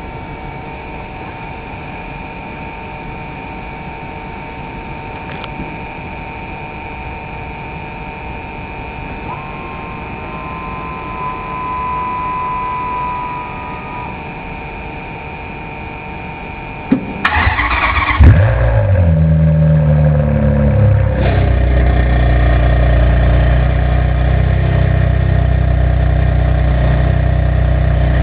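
Ferrari 599 GTB Fiorano's V12 engine being started: after a steady hum with a few steady tones, the starter cranks and the engine catches about 17 seconds in, flares once in a short rev, then settles into a loud, steady idle.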